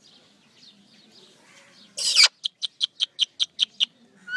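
Pet parrot gives one loud call about halfway through, then a quick run of short, high chirps, about six a second.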